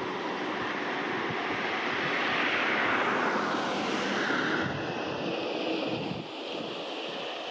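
A vehicle passing at a distance: a rushing noise that swells to a peak about three seconds in, falls in pitch as it goes by, then fades.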